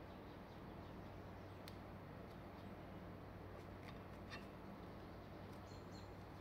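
Near-quiet room tone: a low steady hum with a few faint, sharp clicks about two and four seconds in.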